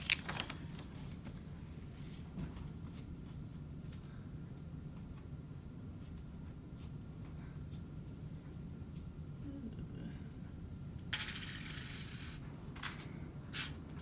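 Coins clinking now and then as change is counted out at a counter, scattered small clicks over a steady low room hum, with a short rustling burst about eleven seconds in.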